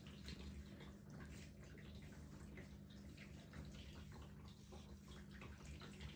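Faint, soft scratching of a wire-pin slicker brush being stroked through a cat's fur, in short irregular strokes, over a steady low hum.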